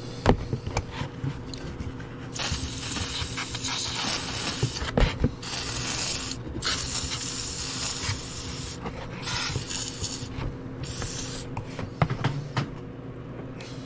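A seized vintage Craftsman basin wrench being worked and knocked by hand: scattered metal clicks and knocks, the sharpest near the start, about five seconds in and about twelve seconds in. Several long hissing bursts fall between about two and eleven seconds in.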